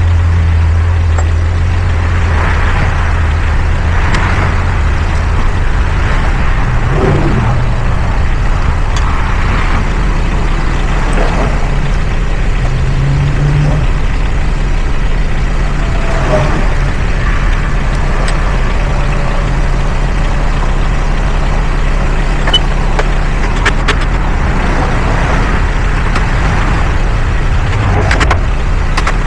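An engine running steadily with a constant low hum, with a few sharp clicks about two-thirds of the way through.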